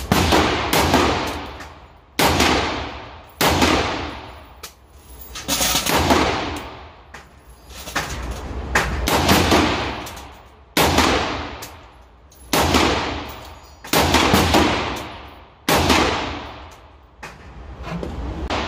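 AR-style rifle firing single semi-automatic shots, roughly one every half second to a second, some in quick pairs. Each crack is followed by a long echo in the enclosed indoor range.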